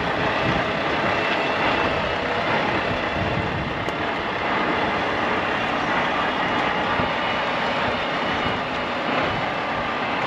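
2022 Volvo VNL 760 semi-truck tractor's diesel engine running as the truck slowly turns to park, heard as a steady, noisy rumble.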